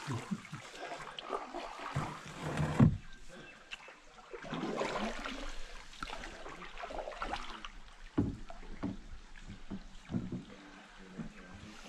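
Canoe paddles dipping and pulling through calm river water, splashing and dripping with each stroke in an uneven rhythm.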